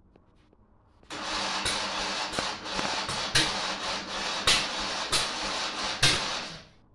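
Electric starter cranking the 1971 Moto Guzzi V7's 90-degree V-twin, with uneven louder pulses as it turns over. It starts about a second in and stops after about five and a half seconds, the engine not settling into a run.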